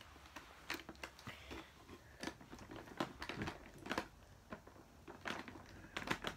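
Plastic ties that hold a model horse's legs to its packaging being snipped and snapped off with pliers: a string of irregular sharp clicks and snaps with some crinkling of plastic and cardboard.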